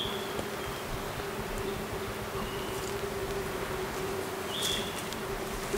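An insect buzzing steadily close by, one even hum at a single pitch, with a few brief high chirps now and then.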